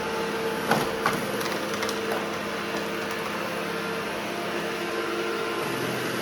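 Robot vacuums (a Roomba j7 and a Deebot 920) running with a steady hum and a few steady tones, with two short knocks about a second in.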